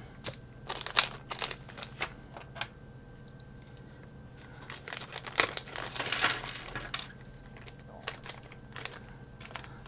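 Plastic packaging of an electronic kit crinkling as it is opened and handled, with scattered small clicks and taps; the crinkling is thickest about five to seven seconds in.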